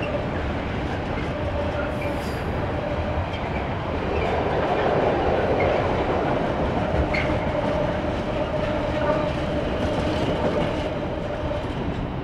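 Container freight train's wagons rolling past on the rails: a steady rumble with occasional clacks of wheels over rail joints and a faint steady whine, loudest midway, dying away near the end as the last wagons pass.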